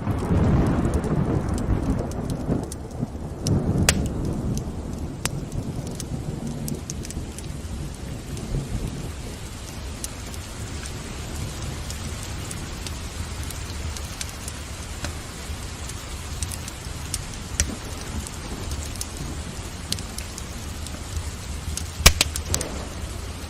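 Steady rain with a roll of thunder rumbling through the first few seconds and fading away. Sharp crackles and pops of a burning wood fire in a fireplace sound over the rain, with the loudest pop near the end.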